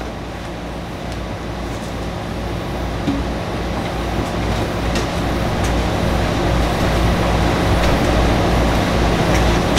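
Steady room noise with a low hum, slowly growing louder, with a few faint knocks.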